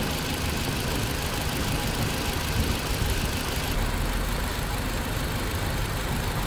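2016 Toyota RAV4's four-cylinder engine idling. About halfway through, the electric radiator cooling fans switch on and keep running, adding a steady rushing sound. The coolant has reached 203 °F, the temperature at which the fans cut in.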